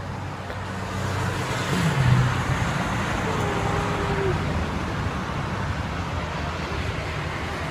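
Street traffic: motor vehicles running past, with a low engine rumble that swells about two seconds in.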